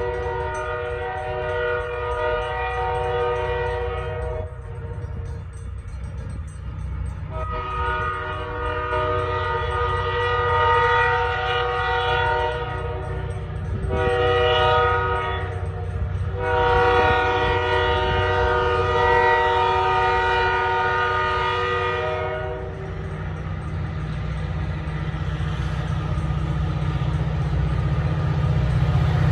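Diesel freight locomotive's air horn sounding a chord in the grade-crossing pattern: long, long, short, long, over the steady low rumble of its engine. After the last long blast, about 22 seconds in, only the engine rumble is left, growing louder as the locomotive approaches.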